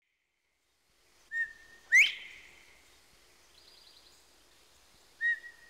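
Northern bobwhite quail whistling its two-note 'bob-white' call twice, about four seconds apart: a short level note, then a sharply rising whistle that rings on briefly.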